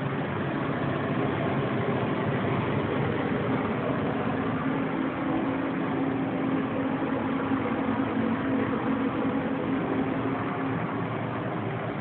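A steady mechanical drone with a low hum in it, strongest through the middle and fading near the end.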